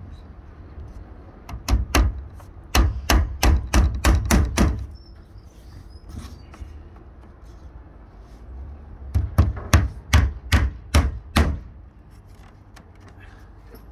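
Hammer driving nails into a timber capping strip on a wooden shed: two runs of quick blows, about ten and then about eight, with a pause of several seconds between them.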